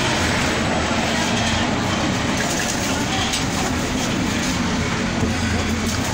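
A steady mechanical rumble, like engines or machinery running nearby, with a low hum underneath.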